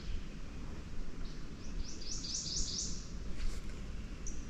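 A songbird singing a quick run of about seven high, downslurred notes that grow louder, starting about a second in, then a single high note near the end, over a steady low background rumble.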